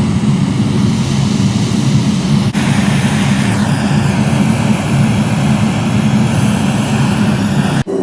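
Gas burner of a gas-fired melting furnace running, a steady loud rushing noise, with brief breaks about two and a half seconds in and just before the end.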